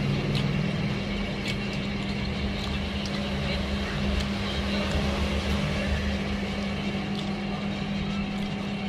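A steady low mechanical hum with rumble beneath it, and a few faint clicks of fingers picking fried catfish off a glass plate.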